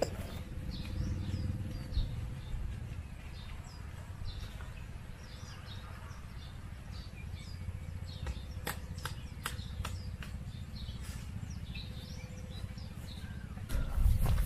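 Birds chirping over a steady low wind rumble; a little past the middle, about five quick sharp knocks as a tent stake is pounded into the ground.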